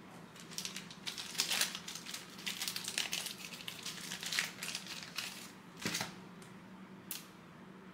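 Thin plastic card sleeve crinkling and rustling as a trading card is slid into it, with a couple of sharp ticks near the end.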